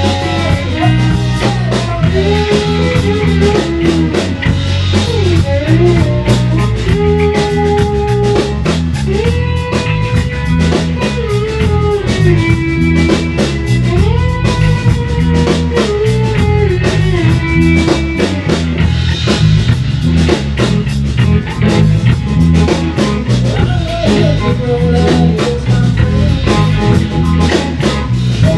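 A blues-rock band playing live: drum kit with steady cymbal strikes, electric guitars, and a lead guitar line of long held notes that bend up and down.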